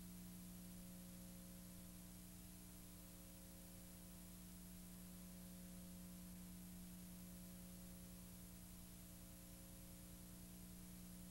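Near silence: a steady low electrical hum with hiss, unchanging throughout.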